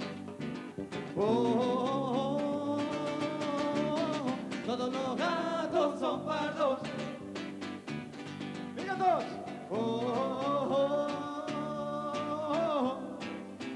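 Live Catalan rumba band playing, a voice singing two long held phrases over Spanish guitar, electric bass and timbales keeping a steady rhythm.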